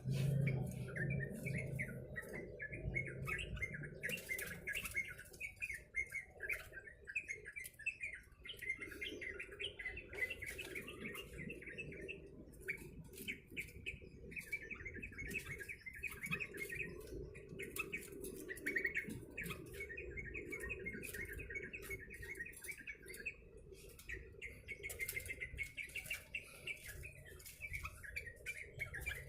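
Yellow-vented bulbul (trucuk) chattering with near-continuous rapid chirping notes, with many short sharp clicks scattered through.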